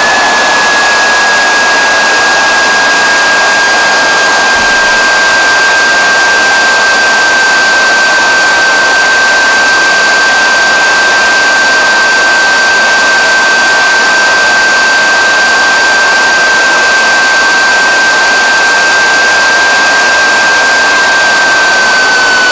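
Home-built miniature turbojet engine running steadily: a loud rush of exhaust under a high, steady turbine whine. Near the end the whine begins to fall in pitch as the engine slows.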